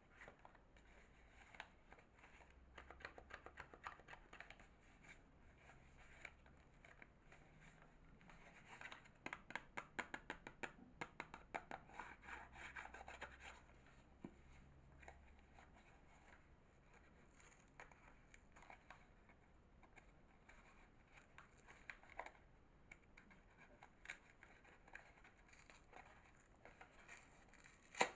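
Soap bars being unpacked by hand: quiet scratching and rustling of the packaging, with a dense run of fast light crackles partway through and a single sharp click near the end.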